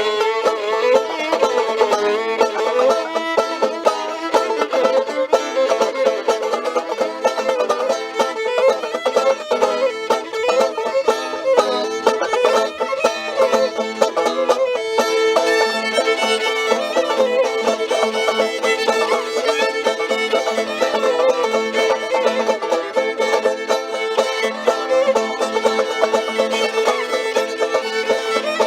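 Live acoustic string music: a fiddle playing a tune over plucked-string accompaniment, continuous with no pauses.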